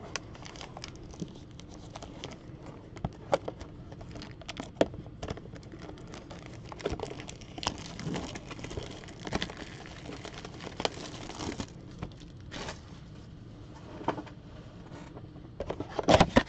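Cardboard trading-card mega box being torn open and handled by hand: scattered crackles, small taps and rustling, with a longer stretch of rustling in the middle and a cluster of louder taps near the end.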